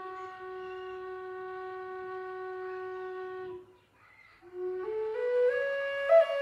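Wooden Native American flute holding one long, steady low note that fades out after about three and a half seconds. After a short breath pause a new phrase begins, stepping up note by note, with a quick louder higher note near the end.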